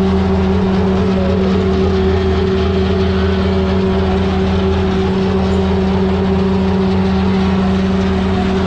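An engine aboard a sardine-fishing boat running at a constant speed: a loud, steady drone with an even hum.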